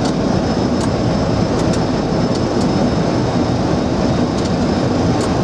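Steady rush of airflow and engine noise inside the flight deck of a Boeing 737-300 on final approach, with a faint steady high tone.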